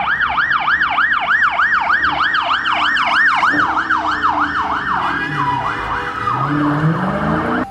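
Police car siren on a fast yelp, a rising-and-falling wail repeating about four times a second. After about five seconds it turns rougher, and a passing vehicle's engine rises beneath it.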